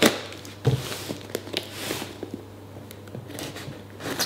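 Knife blade scratching and cutting through packing tape and cardboard on a parcel, with a sharp knock at the start and a dull thump just under a second in as the box is handled, then scattered small clicks and a soft scraping hiss.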